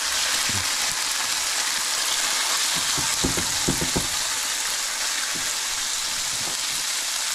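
Black sea bass fillets searing in hot oil in a nonstick skillet, a steady sizzle as the fillets are laid in. A few soft knocks come around the middle.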